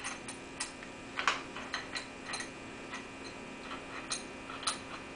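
Adjustable wrench on the metal male air adapter of a pneumatic upholstery staple gun as the fitting is tightened into the gun: a string of irregular light metallic clicks and taps, the loudest a little over a second in, over a faint steady hum.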